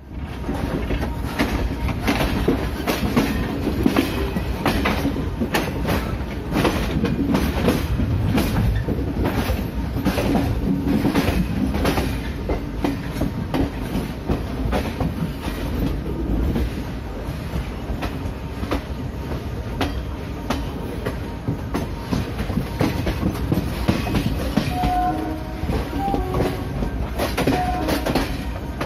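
Coaches of an express train running on the rails, heard from aboard: a steady low rumble with the wheels clattering irregularly over rail joints.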